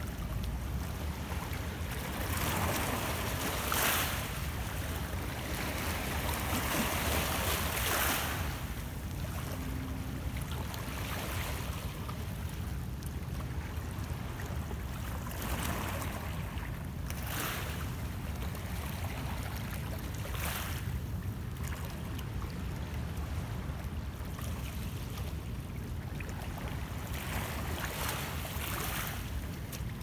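Small lake waves lapping and splashing against shoreline rocks in irregular washes every few seconds, over a steady low rumble of wind on the microphone.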